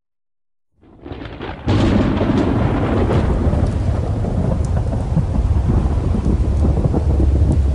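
Rain with a low thunder rumble. It fades in from silence about a second in, then rises abruptly to a steady loud wash of rain over a deep rumble.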